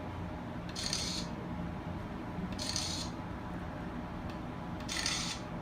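Steady road rumble inside a moving car, with three short rubbing swishes about two seconds apart.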